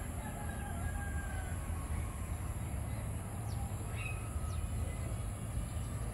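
Outdoor ambience: a steady low rumble, with a steady faint high-pitched hum and a few faint bird calls scattered through it.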